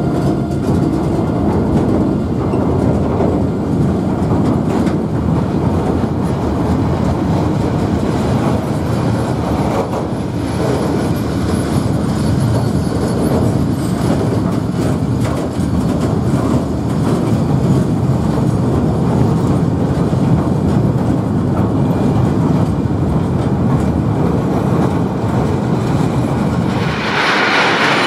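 Train running through the station, a steady low rumble of wheels on the rails with some clatter. Near the end a higher hiss comes in, typical of wheels screeching on the rails.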